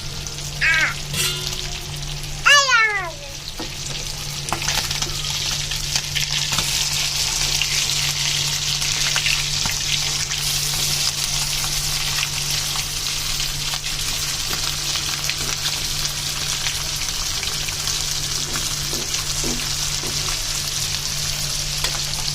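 Fish frying in hot oil in a pan, a steady sizzle that grows a little stronger a few seconds in. Near the start, two short falling-pitched calls cut through it; the second is the loudest sound.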